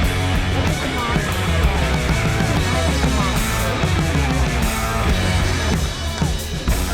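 Rock music with distorted electric guitars and a steady, heavy low end.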